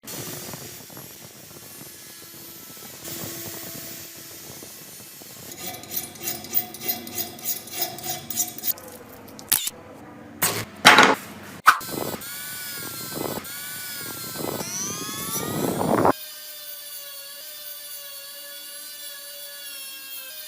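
Workshop tool work on a metal knife blade: rhythmic scraping strokes at about two a second, a few sharp knocks, then a power tool whining with its pitch sweeping up and down. About three-quarters of the way through, the low rumble cuts off abruptly and a steadier high whine carries on.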